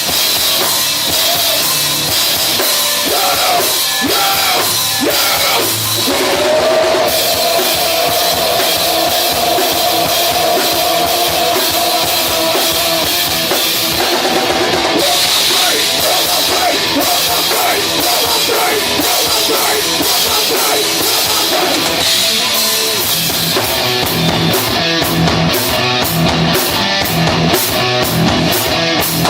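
Live rock band playing a loud passage without vocals, driven by a drum kit. A long held note sounds in the middle, and evenly spaced cymbal hits, about two or three a second, come near the end.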